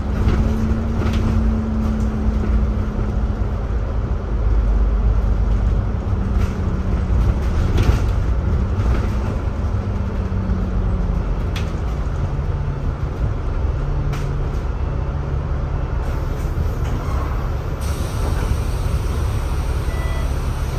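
Double-decker bus running, heard from on board: a steady engine rumble with a hum that sinks in pitch as the bus slows and draws up at a bus stop, and a high hiss near the end.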